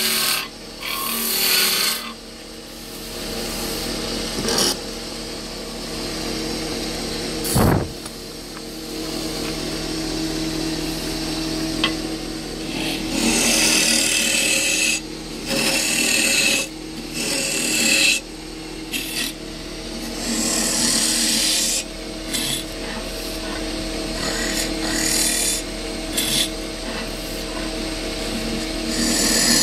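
Wood lathe running steadily while a turning tool cuts the spinning wood in repeated scraping passes of a second or two each. There is one sharp knock about seven seconds in.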